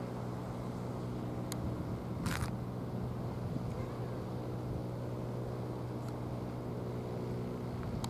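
A steady low engine hum at idle, with one even pitch throughout. A faint click comes about a second and a half in, and a short hiss about two seconds in.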